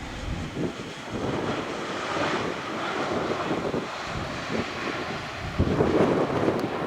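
Airbus A320 airliner landing: a continuous rush of jet engine noise that grows louder about five and a half seconds in.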